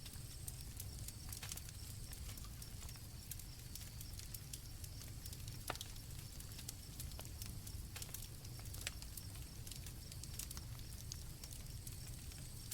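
Campfire crackling, with irregular sharp pops over a steady low rumble of burning wood, and crickets chirping in a high, steady tone behind it.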